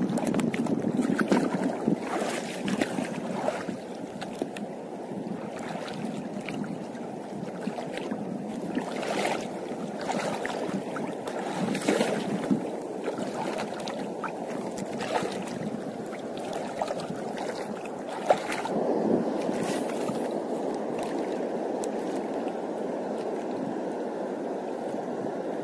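Shallow sea water washing and lapping around rocks, with wind buffeting the microphone. Brief sharp crackles come every second or two.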